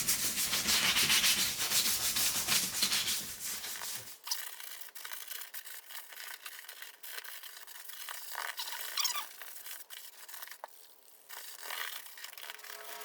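Vinyl Recaro seat upholstery being scrubbed with saddle soap in fast back-and-forth strokes. The scrubbing stops abruptly about four seconds in, leaving quieter scattered rubbing and light taps.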